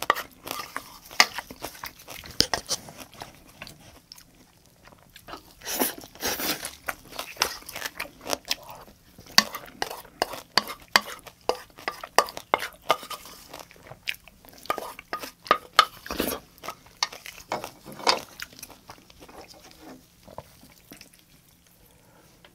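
Close-miked chewing and crunching of food, with the clicks and scrapes of chopsticks against a bowl, in many short irregular bursts.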